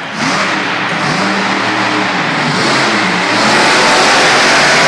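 Raminator monster truck's engine revving hard, its pitch wavering up and down and growing louder near the end.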